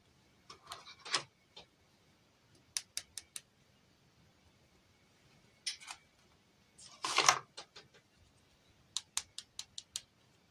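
Small plastic toy pieces and packaging being handled up close: quick groups of light clicks and taps, with two short crinkly rustles, the louder one a little past the middle.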